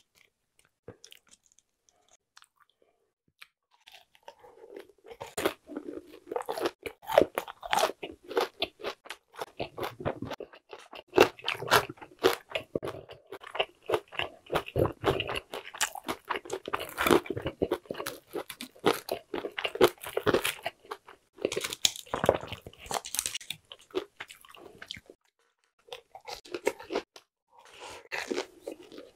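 Fried shrimp balls being chewed into a close microphone, crisp crackling crunches starting about four seconds in and going on almost without break, with a short pause near the end.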